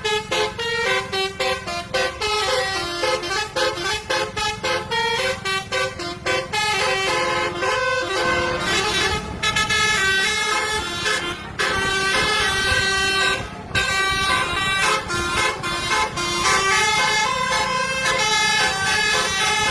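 Telolet multi-tone bus air horn playing a quick tune of stepped notes without pause, over a low rumble.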